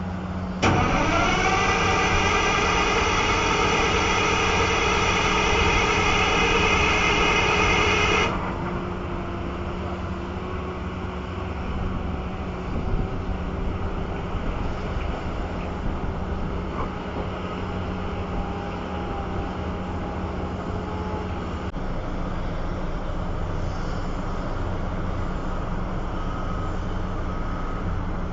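Heavy machinery running with a steady low hum. About half a second in, a loud high-pitched tone starts, climbs briefly and holds for about eight seconds before cutting off suddenly; after that fainter tones drift slowly over the running machine.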